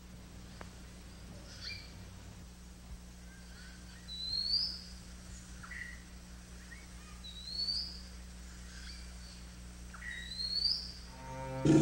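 Birds calling: a rising whistle repeated three times about three seconds apart, with shorter chirps in between, over a faint steady hum.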